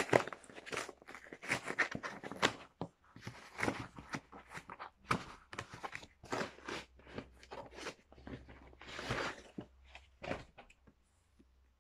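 Cardboard mailer being opened and handled by hand, with crinkling and rustling paper as a packing slip is pulled out; irregular rustles and scrapes that die away near the end.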